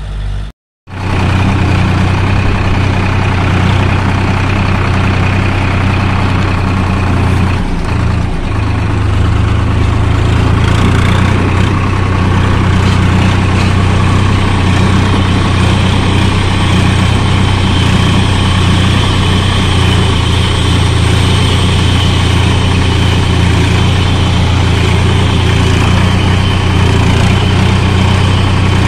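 Heavy diesel engine of earthmoving machinery running steadily with a deep, even hum. The sound cuts out for a moment about half a second in, then carries on unchanged.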